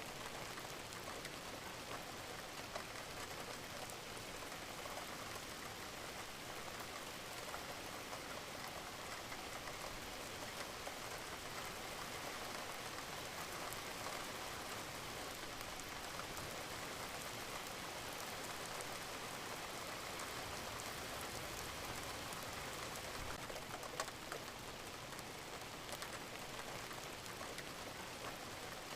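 Steady rain falling, with scattered individual drops ticking, a little louder about a second in and at several points near the end.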